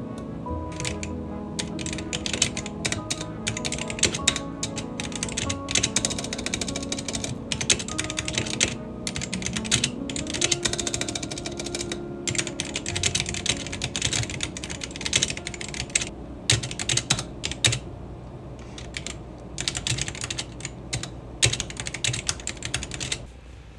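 Fast typing on a computer keyboard: a rapid, continuous run of key clicks with a few brief pauses, stopping just before the end. Background music plays underneath.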